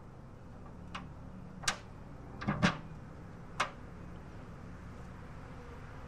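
A handful of short, sharp knocks and taps of wooden beehive equipment (the nuc box and its parts) being handled, about one to four seconds in, over a faint steady low hum.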